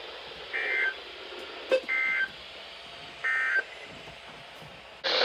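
Three short bursts of EAS SAME digital data tones, a buzzy two-pitch warble about a second and a quarter apart: the end-of-message code sent after a severe thunderstorm warning, heard over weather-radio hiss. A sharp click comes just before the second burst, and a louder hiss cuts in at the very end.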